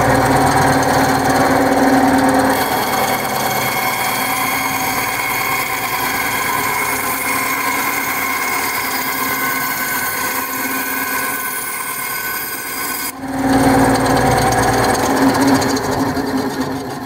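Benchtop bandsaw running steadily, its blade cutting through a block of balsa wood. The tone of the saw changes about two and a half seconds in, and the sound breaks off sharply for a moment about thirteen seconds in before carrying on.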